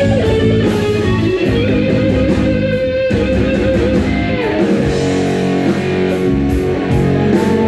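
Rock music played on electric guitar and bass: a sustained guitar melody over steady bass notes, with a regular beat.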